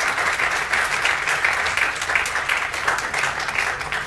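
Audience applauding: many hands clapping in a dense, even patter that starts to die away near the end.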